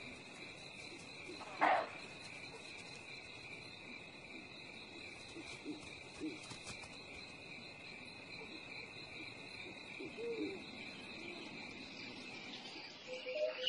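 Night-time insect chorus, a steady high-pitched drone, with a short loud animal call about two seconds in and a few soft low calls around ten seconds. Music comes in near the end.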